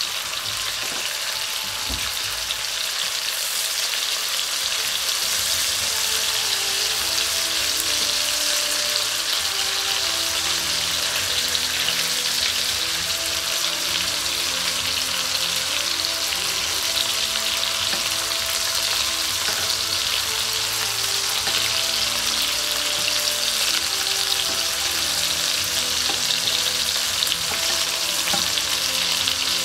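Thinly sliced beef frying in oil and juices in a nonstick pan: a dense, steady sizzle that grows a little louder over the first several seconds. Tongs turn the meat from time to time.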